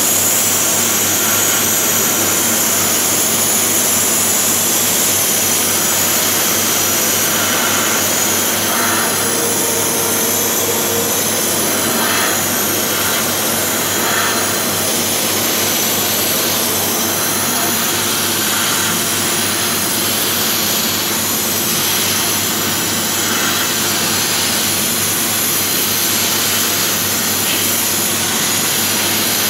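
Sandblasting gun in a vacuum blasting cabinet firing continuously, a loud, steady hiss of compressed air and abrasive striking a metal plate, stripping it to bare metal.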